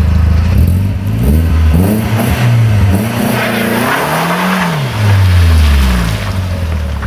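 Car engine revving up and down again and again, loud, with a rushing hiss around the middle as it revs.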